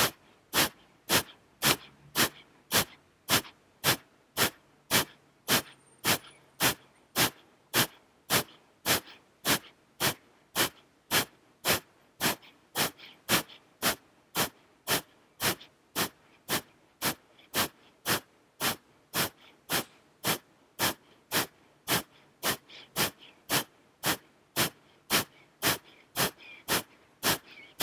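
Kapalabhati (skull-shining breath): a woman's sharp, forceful exhalations through the nose at a steady pace of just under two a second, each a short puff of air, with quiet inhales between.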